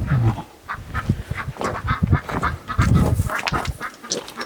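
Waterfowl calling, a run of short repeated calls.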